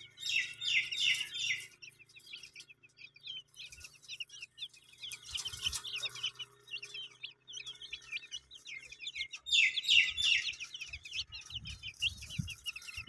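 Baby chicks peeping: a steady stream of short, high peeps that slide down in pitch. There are two louder flurries of rapid peeps, one right at the start and one about ten seconds in.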